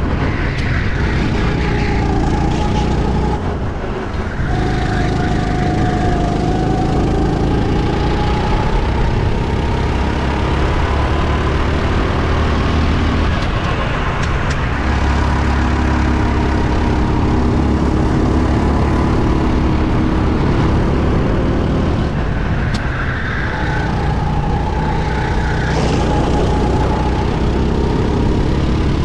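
Go-kart engine running hard, heard on board the kart. Its pitch falls and climbs again as the kart eases off and accelerates through the track's bends, with short dips about 4 seconds in and again past the 20-second mark.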